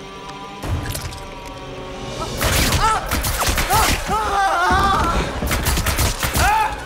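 Horror-film soundtrack: a tense score of sustained tones is cut by a heavy thud about a second in. From about two seconds in, loud chaotic impacts and crashes come over the music, with shrill rising-and-falling cries.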